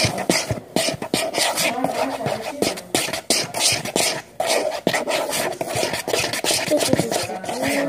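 Slime mixture with shaving foam being stirred in a bowl: a utensil scraping and rubbing against the bowl in quick, irregular strokes.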